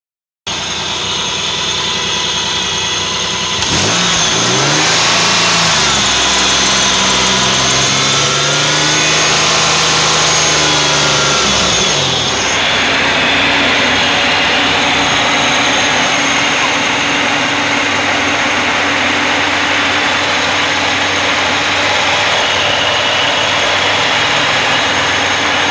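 Mercury Villager minivan's V6 engine running with an exhaust leak behind the engine. It idles, is revved up about four seconds in and brought back down by about twelve seconds, then idles steadily.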